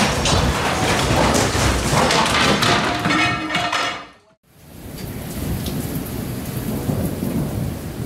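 Loud clattering and banging of loose furniture and objects thrown about inside a cruise ship's lounge as it rolls in a storm. About four seconds in this cuts briefly out, and then heavy rain falls steadily with thunder.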